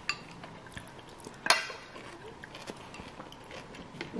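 Quiet eating sounds: chopsticks clicking against the plate while noodles and seafood are picked up, with one sharp clink about a second and a half in.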